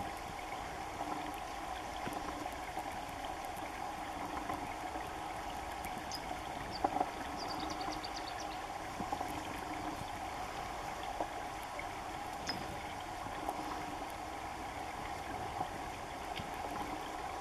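Steady sound of running water. A few faint high bird chirps, including a quick run of them, come about six to eight seconds in.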